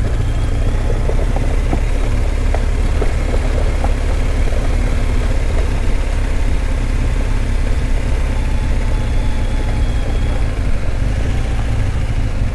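Heavily loaded motorcycle being ridden, its engine running steadily under a constant low rumble.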